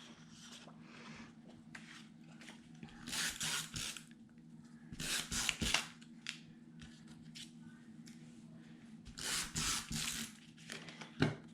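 Paper and cardstock being handled and positioned on a work table, giving a few short rustling, rubbing bursts.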